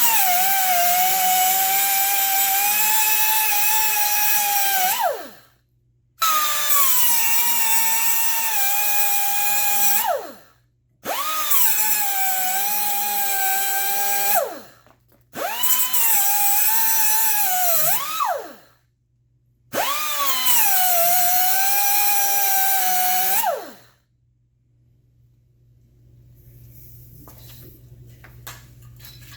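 Power cutoff wheel cutting into a seized, rusted-on shock absorber bushing, run in five bursts of about four to five seconds with short pauses; the whine sags in pitch as the wheel bites and falls away each time it is released.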